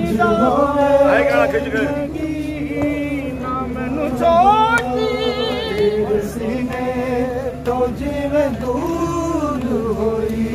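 Men's voices chanting a Punjabi noha, a Shia mourning lament, in long sung lines with wavering held notes.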